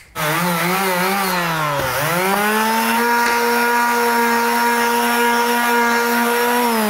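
Power sander with a rectangular pad running on the white running surface of a cat exercise wheel. Its hum wavers in pitch for the first two seconds, with a brief dip, then holds steady. Near the end it slides lower in pitch as the sander winds down.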